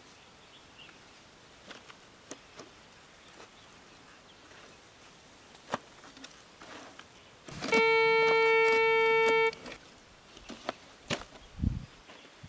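Metal detector giving one steady, high-pitched tone for just under two seconds, its signal that a metal target is under the coil. Faint light clicks come before it and a low thump comes near the end.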